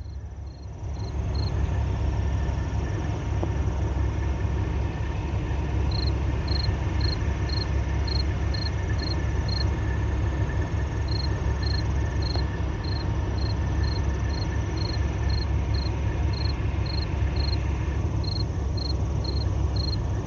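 Insects chirping steadily in the grass, a high chirp repeated about twice a second with a few short pauses, over a steady low rumble.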